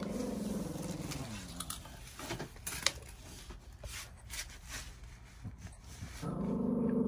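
A dog's low, drawn-out growling whine at the start and again near the end. In between come crisp, scattered clicks from leopard tortoises biting into romaine lettuce.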